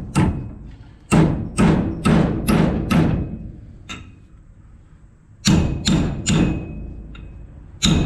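Hammer blows driving steel roll pins into a corn head shaft, sharp ringing metal strikes about two a second in three runs: five, a pause, three, then more near the end.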